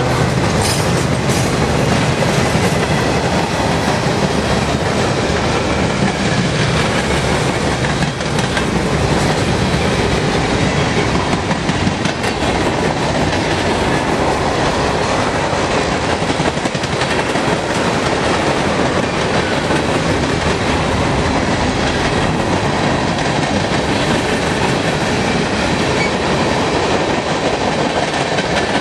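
Freight cars of a passing train (flatcars loaded with excavators, covered hoppers and tank cars) rolling by: a loud, steady noise of steel wheels running on the rails.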